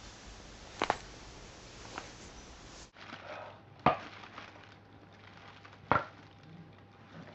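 Joints cracking during chiropractic adjustments: a sharp double crack about a second in, a faint crack near two seconds, then two loud single cracks about two seconds apart.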